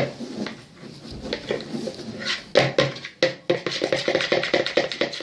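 A spoon stirring glue in a bowl: rapid, repeated scraping and clicking strokes, sparse at first and quickening to a steady run about two seconds in.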